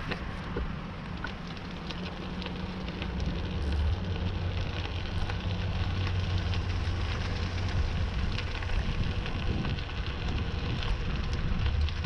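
Bicycle rolling along a road shoulder beside a queue of stopped traffic: steady crackly tyre and wind noise, with a low engine hum that gets louder about three and a half seconds in as the bike passes close alongside an idling utility pickup truck.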